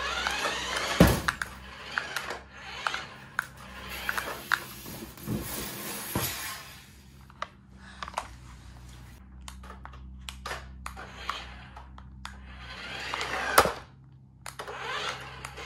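Toy remote-control pickup truck driving on a tile floor: its small electric motor whirs, rising and falling, while the plastic body and wheels clatter, with sharp knocks about a second in and again near the end.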